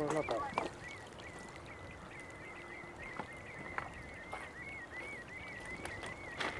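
Shoreline birds calling: a short duck-like call at the start over a steady high warbling trill that repeats throughout, with a few faint clicks.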